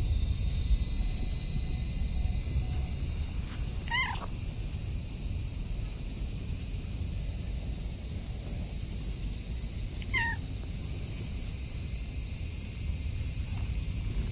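Orange tabby cat giving two short meows, about four seconds in and again about ten seconds in. Behind them runs a steady high-pitched hiss and a low rumble.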